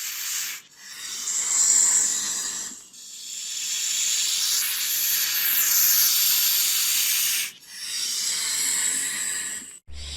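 Snake hissing in a series of long, sharp hisses with short breaks between them. The longest runs about four and a half seconds.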